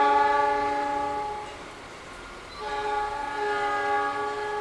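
Horn of a CC206 diesel locomotive hauling empty flat wagons, a chord of several steady notes. It sounds twice: a blast of about a second and a half, then a second, longer blast starting about two and a half seconds in.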